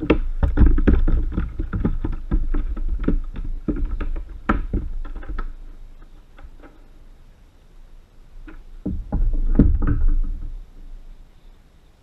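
Knocking, bumping and handling noise on a plastic sit-on-top kayak as the angler shifts and handles gear. It comes in a long busy bout of many quick knocks over the first five seconds or so, goes quieter, then returns in a shorter bout around nine seconds in.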